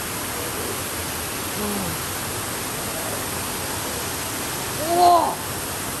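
Waterfall rushing steadily, a dense even roar of falling water. A brief low voice sound comes about two seconds in, and a louder short rising-and-falling vocal exclamation about five seconds in.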